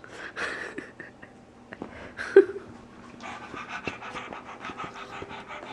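Small excited dog panting rapidly, with one short pitched whine-like sound about two and a half seconds in.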